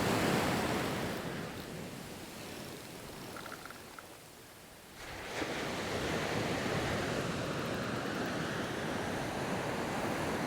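Surf washing onto the beach, with wind buffeting the microphone. The rush fades down for a few seconds and comes back suddenly about five seconds in.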